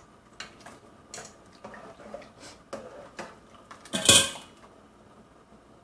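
A metal utensil knocking and scraping against a cooking pot in a string of light clinks, with one louder clatter about four seconds in.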